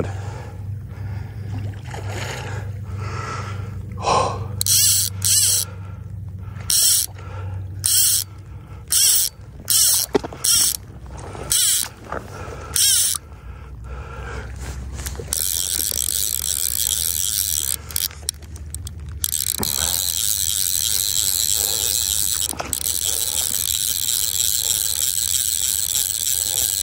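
Fly reel's ratcheting drag sounding while a large trout is played on the line: about ten short ratcheting bursts, then, about fifteen seconds in, a long continuous buzz as the fish runs and strips line off the reel, with one brief break.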